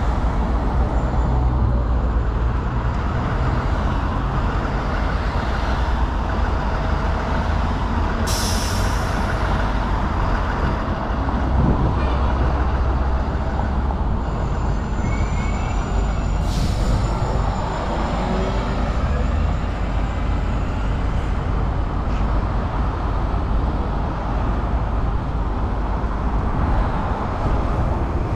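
Steady, loud road traffic noise from passing vehicles, heaviest in the low rumble, with two short hisses about 8 and 16 seconds in.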